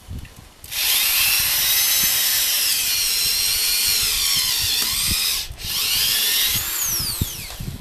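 Cordless drill whining as it bores into the rubber of an old tire, in two runs with a brief stop about five and a half seconds in; near the end the motor winds down with a falling pitch.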